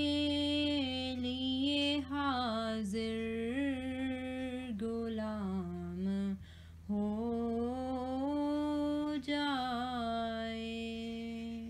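A solo voice sings the closing phrase of a naat as long, drawn-out wordless notes that bend in pitch, with a brief break about six seconds in. A steady low drone runs underneath.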